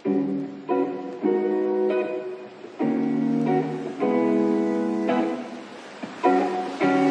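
Background music: guitar chords strummed one at a time, a new chord about every second, each left to ring.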